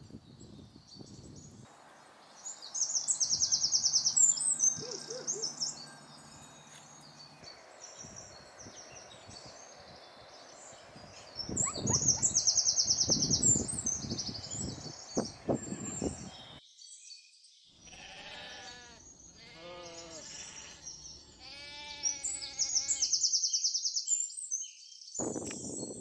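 A songbird singing a fast, high trill, repeated three times several seconds apart; these are the loudest sounds. About three quarters of the way through, a goat bleats in a run of short wavering calls. Patches of low rumbling come and go underneath.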